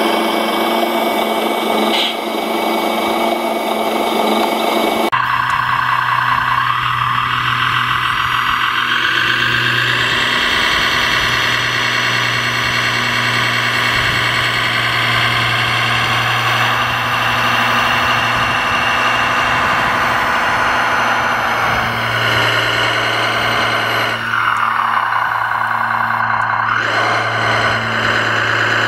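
Radio-controlled Liebherr LRT 1100-2.1 model crane running as its boom is worked: a steady low hum under a motor whine. The sound changes abruptly about five seconds in. The whine then rises in pitch, holds, sinks, and dips and climbs again near the end.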